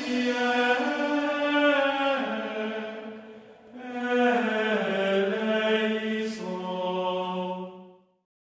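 Music: sung chant of sustained vocal chords, each chord held for a second or two before moving on, with a short break in the middle, stopping just before the end.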